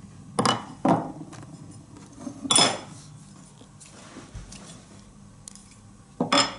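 Steel bushcraft knives clacking against each other and knocking on a wooden tabletop as they are picked up and set down. There are four sharp clacks, and the loudest, about two and a half seconds in, rings briefly.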